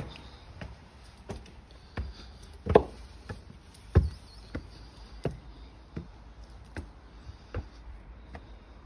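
Footsteps climbing stone steps, a knock about every three-quarters of a second, two of them heavier about three and four seconds in.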